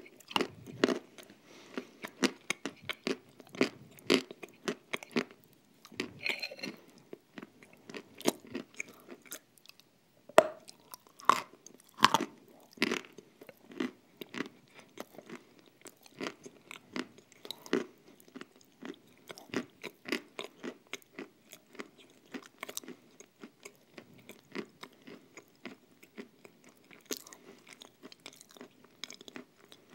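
Close-miked chewing of a thick cream with crunchy nut crumbs in it, with sticky mouth clicks and crackles. These come thick and fast at first and thin out for a moment near the end.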